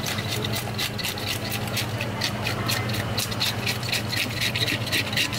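A toothed fish scaler raking the large scales off a parrotfish in rapid rasping strokes, several a second, with the loosened scales crackling as they flick off.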